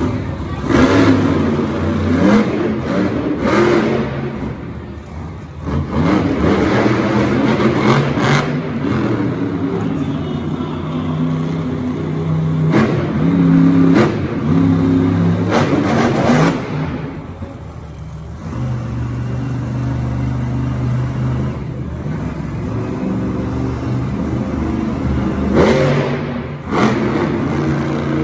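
Monster truck's supercharged big-block V8 revving hard, pitch climbing and falling again and again as the truck lifts onto two wheels. The engine eases off briefly about five seconds in and again past the middle before it opens up once more.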